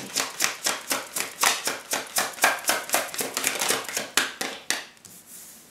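A deck of tarot cards being shuffled by hand, the cards clicking against each other in a quick, even rhythm of about five a second that stops near the end.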